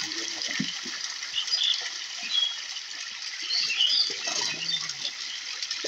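Pond water splashing and sloshing as a fishing net is hauled through it, with small birds chirping now and then.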